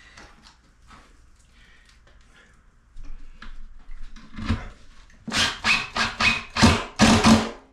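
Cordless drill driving a screw in a string of short trigger bursts for about two seconds near the end, after a few quieter handling knocks and a low thump.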